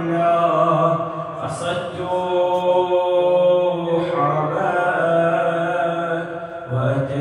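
A man's voice chanting in long, drawn-out melodic notes that shift pitch every few seconds.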